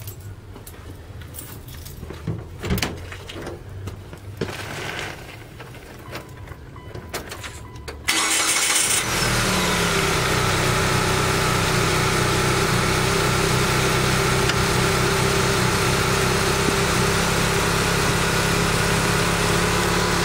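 A few light clicks and knocks, then about eight seconds in the Mitsubishi Outlander's engine cranks for about a second, fires straight away and settles into a steady fast idle, still cold. The quick start is the sign that the fuel problem is cured now that the stale gas has been replaced.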